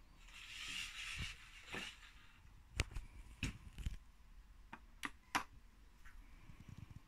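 Quiet handling noise: a soft rustle of fabric, then about six sharp clicks and knocks spread over the next few seconds.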